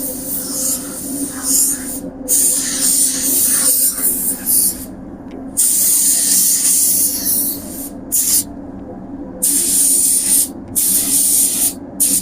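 Compressed-air paint spray gun spraying primer-surfacer in several passes, its hiss cutting off sharply each time the trigger is released. A steady low hum runs underneath.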